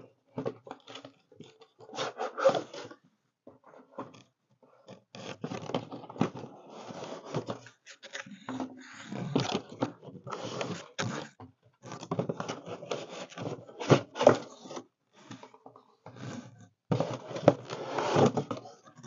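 Cardboard shipping box and long inner cardboard boxes being unpacked by hand: flaps pulled open and cardboard scraping and rubbing in irregular bursts with short pauses, and a few sharp knocks.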